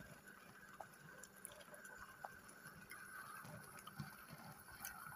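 Near silence: a faint steady hum with a few soft ticks.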